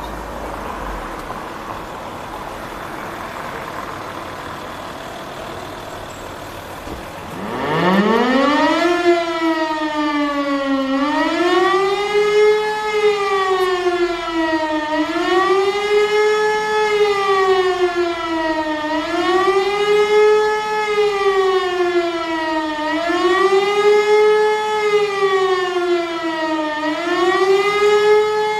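E57 electromechanical civil-defence siren at a siren test. About seven seconds in it spins up with a steep rising howl, then wails steadily up and down in pitch, about one swell every four seconds.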